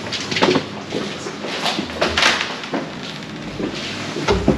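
Interior doors being pushed open and swinging, with a series of short knocks and clicks from handles and latches and a brief swish about two seconds in. The loudest knocks come near the end.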